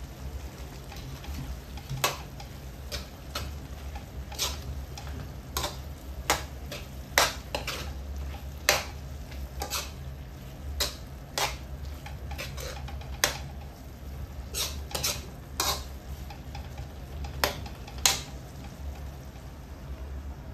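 Metal spatula stirring minced meat in a metal wok, with irregular sharp clinks and scrapes against the pan, about one a second, over a steady low hum.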